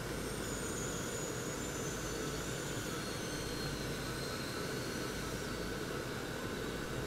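Steady whirring hum of the electric blower fans that keep the inflatable lawn decorations inflated, with a faint high whine drifting slowly lower.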